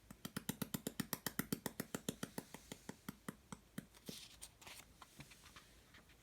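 A rapid run of sharp taps, about seven a second, that slows and fades after roughly three and a half seconds, followed by a short rustle and a few scattered taps.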